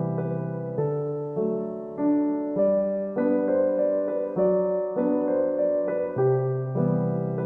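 Background music: a soft piano or electric-piano tune, with notes and chords changing about every half second.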